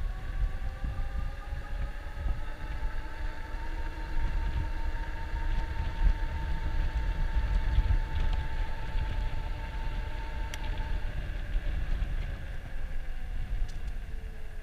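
Electric bike's motor whining as the bike rides along, its pitch rising over the first few seconds as it speeds up, holding steady, then dropping near the end as it slows. Wind rumbles on the microphone throughout.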